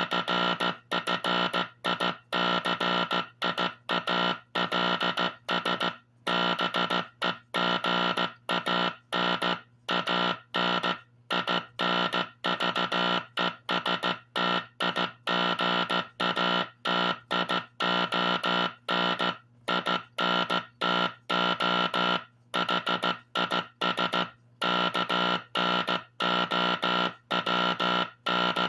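Teleplex code practice oscillator sounding Morse code played from a recorded drum: a buzzy tone keyed on and off in short dots and longer dashes with uneven gaps. A steady low hum runs underneath, through the gaps too.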